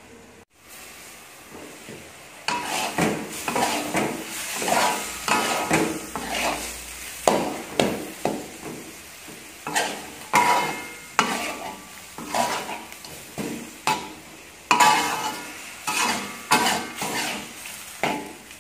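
Metal spatula stirring and scraping squid rings and pineapple chunks around an aluminium wok, about two strokes a second, starting a couple of seconds in, over a low sizzle of the frying food.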